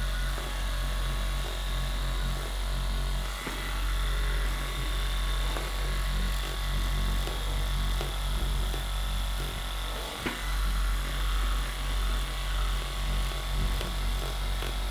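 Percussive massage gun running with a steady low buzz as it is pressed into the muscles behind the shin, its level wavering a little with the pressure.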